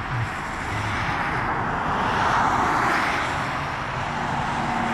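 A passing vehicle: a broad rushing noise that swells to its loudest about halfway through and then fades, over a faint low hum.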